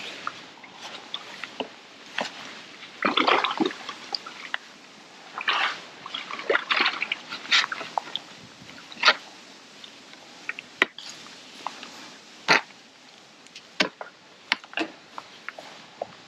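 Irregular water splashing and sloshing at the bank edge, mixed with scattered sharp knocks and rustles of tackle being handled.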